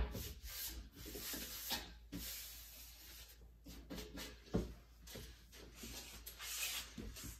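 Soft, irregular rubbing and rustling with a few light knocks: kitchen things being handled during baking prep, such as paper or a baking sheet being moved on the counter.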